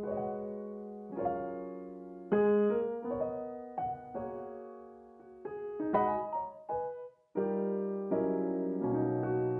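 Background piano music: a run of chords and single notes, each struck and left to fade.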